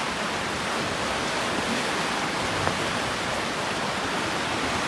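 Floodwater rushing steadily past the concrete piers of a low bridge.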